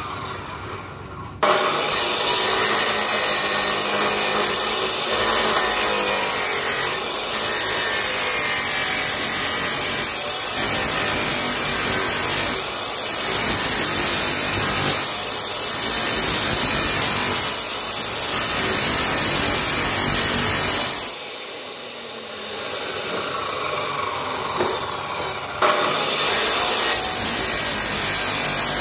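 Maktec abrasive cut-off saw grinding through a round steel pipe: a loud, steady grinding of the abrasive disc in the metal. The cut bites in about a second and a half in. It eases to a quieter run for a few seconds past the two-thirds mark, then bites in hard again near the end.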